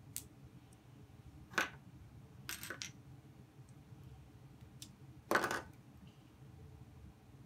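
LEGO bricks clicking and clattering as the model is pulled apart and pieces are set down: a few sharp plastic clicks and short rattles, the loudest about a second and a half in and again about five and a half seconds in.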